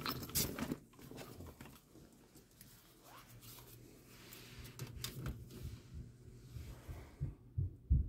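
Handling noise from rummaging in a soft tool bag and pulling out a clamp meter: rustling, clicks and light knocks, loudest in the first second, with a few low knocks near the end as the meter is set in place on the furnace. A faint low hum runs underneath.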